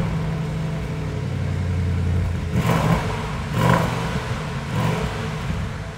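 2020 Bentley Continental GT's engine running just after a cold start, first at a steady high idle, then revved in three short throttle blips in the second half.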